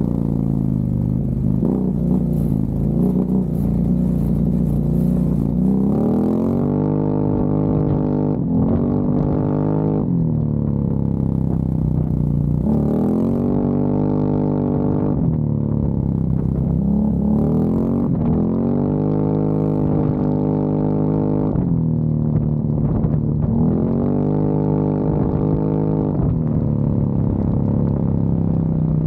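ATV engine running under way on a dirt track. Its pitch climbs over a second or two and then drops back, again and again as the throttle is worked, over a low rumble and the crackle of tyres on gravel.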